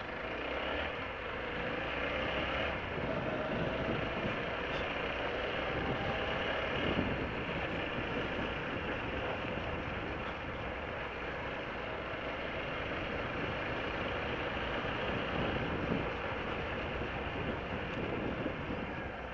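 Motorcycle being ridden: a TVS Apache RTR 160 4V's single-cylinder engine running steadily under the rider, mixed with steady wind and road noise.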